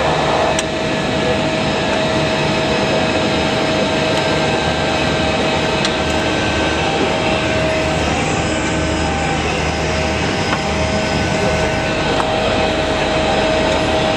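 Cessna Caravan's Pratt & Whitney PT6A turboprop engine and propeller running steadily, heard inside the cabin as a loud, even rush with a steady whine through it.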